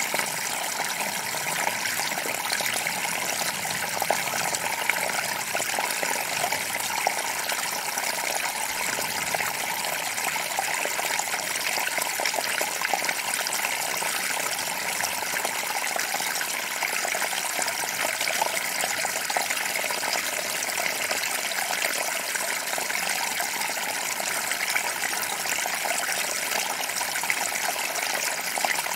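Small forest creek running over rocks: a steady rush of water with many small splashes and trickles.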